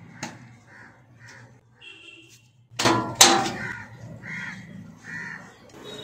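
Crows cawing repeatedly, and about three seconds in a loud metallic clatter as the washing machine's sheet-metal back panel comes off.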